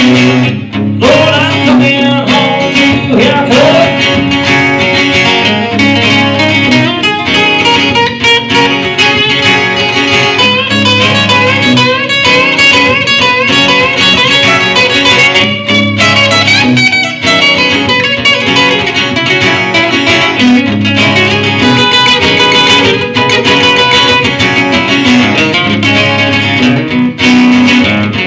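Acoustic guitar playing an instrumental passage live, with no singing.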